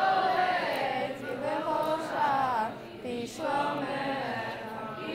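Young female voices singing a Hebrew prayer melody together, with held and gliding notes and a short break between phrases about three seconds in.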